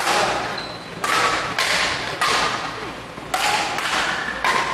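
Badminton doubles rally: rackets hitting the shuttlecock with sharp cracks, about six irregularly spaced hits, each ringing on briefly in the large hall.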